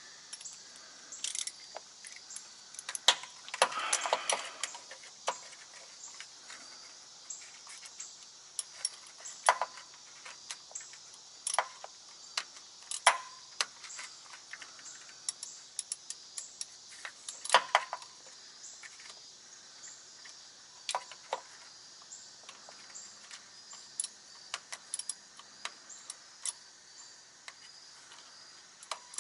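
Scattered small metallic clinks and clicks of hand tools and nuts on a truck's wiring terminals, with a short rustle about four seconds in.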